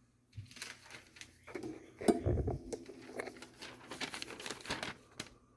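Freshly stropped kitchen knife slicing into a sheet of paper as a sharpness test: paper crinkling and tearing with irregular rustles and small clicks, and one louder low thump about two seconds in.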